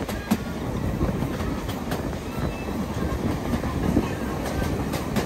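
Steady rumble and clatter of a heritage steam railway train running along the track.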